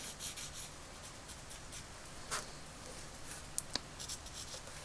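Felt-tip marker (brown Sharpie) being stroked along the cut edge of a faux-leather strap: a faint, scratchy rubbing in short repeated strokes, with two small clicks a little past halfway.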